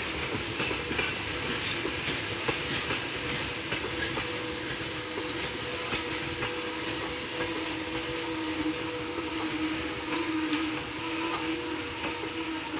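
Loaded open-top freight wagons of a long freight train rolling past, wheels clicking over the rail joints, with a steady squealing tone under the clatter as the train brakes.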